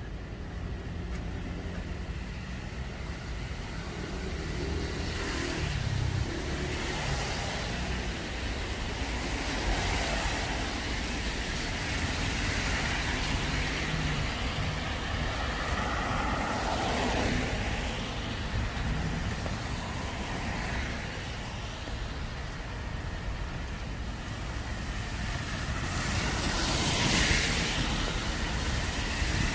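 Cars passing on a wet road, their tyre hiss swelling and fading several times, loudest near the end, over a steady low traffic rumble.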